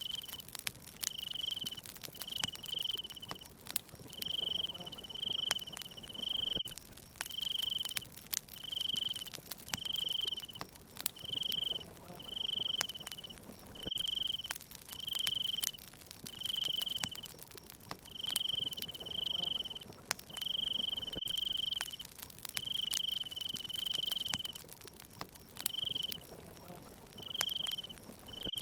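A cricket chirping steadily, a short high trill about once a second, over the sharp pops and crackles of a burning wood fire.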